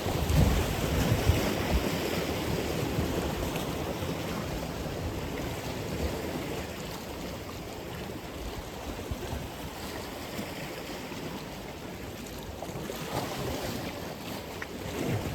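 Sea waves breaking and washing in. A surge of surf comes in the first seconds and fades away over several seconds, then another swells near the end.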